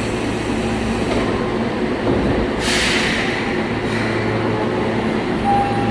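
Osaka Metro 20 series subway car running, heard from inside the car: a steady rumble of wheels and traction motors. About three seconds in there is a hiss of air lasting around a second.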